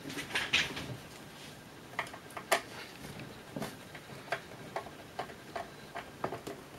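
Light, irregular clicks and ticks of a screwdriver working the small screws of the module's metal cover, about a dozen spread unevenly through, the sharpest about two and a half seconds in.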